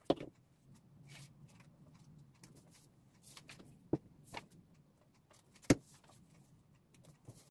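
Handling of paper and a photo on a desk: soft rustling and a few sharp taps, with a loud one right at the start and another about three-quarters through, as a printed photo is laid and pressed onto a journal page.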